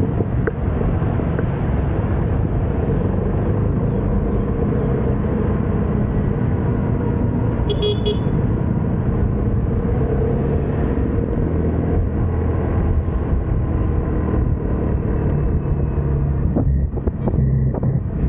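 Steady rumble of a motorcycle riding on the road with wind on the microphone, and a short horn beep about eight seconds in.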